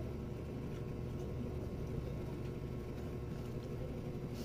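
A man eating noodles by hand, with faint mouth sounds and a slurp near the end as a mouthful goes in, over a steady low background rumble.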